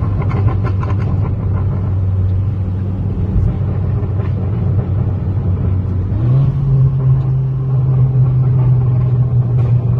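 VW Golf 7 GTI's turbocharged four-cylinder engine running at steady revs, with a quick rattle of exhaust crackles in the first second. About six seconds in, the engine note steps up in pitch and holds there, with a few more pops near the end.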